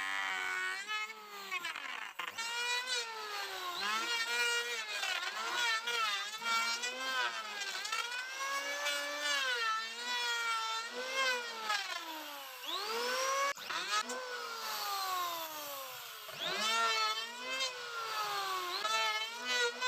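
Electric hand planer running while it shaves a rough wooden slab. Its motor whine repeatedly drops in pitch as the blades bite into the wood under load, then rises again as the pressure eases, over and over.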